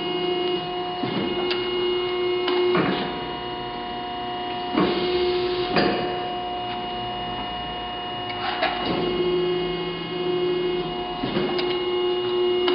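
Wysong CNC hydraulic press brake running through its cycles: a steady hydraulic pump hum, with sharp clicks and knocks a few times as the ram and valves shift between high-speed approach and slow forming strokes.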